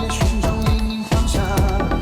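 Background electronic dance music with a heavy kick drum about three beats a second; the bass drops out for a moment about halfway.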